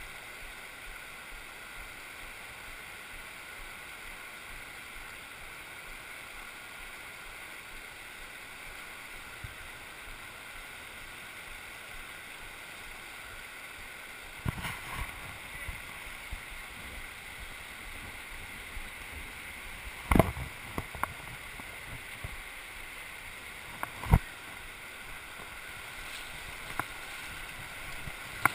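Shallow, fast river water rushing steadily over cobbles in a slot canyon, close to the microphone. In the second half a few sharp knocks break in, two of them loud.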